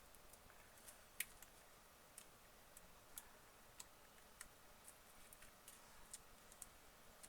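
Faint, irregular small clicks and ticks as a tablet's glass touch panel is pried loose from its frame, the adhesive letting go bit by bit.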